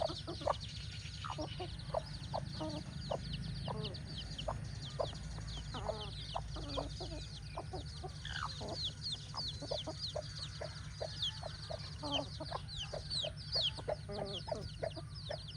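Mother hen clucking in short, low notes while her chicks peep constantly in high, quick, falling notes. A steady low hum runs underneath.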